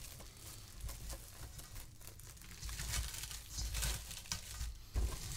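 Plastic cling wrap crinkling as it is stretched over a stainless steel mixing bowl and pressed down around the rim, with a few soft low bumps.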